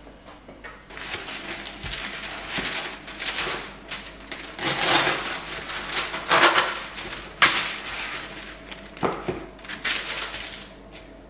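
Baking paper being pulled from its box and handled, rustling and crinkling in irregular bursts from about a second in, with a few sharp clicks.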